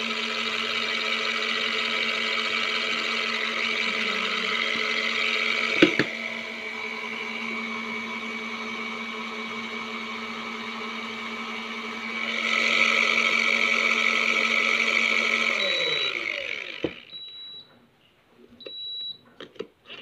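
Mini foldable washing machine's small motor running with a steady hum as its pulsator disc spins in the empty tub, with a sharp click about six seconds in. Near the end the motor winds down, its pitch falling, and a few short high beeps and light handling clicks follow.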